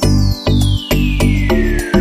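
Electronic background music with a steady beat and bass notes, with a long falling sweep running through it.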